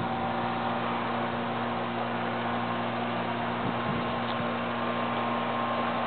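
Steady hiss with an even low hum underneath, without distinct events.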